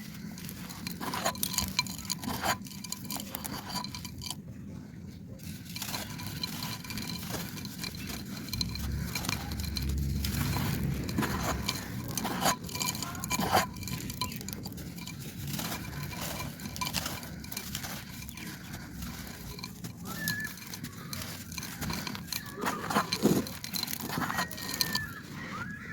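Dry clay pot crumbling and being crushed, a dense run of crunchy, crackling clicks with occasional louder snaps.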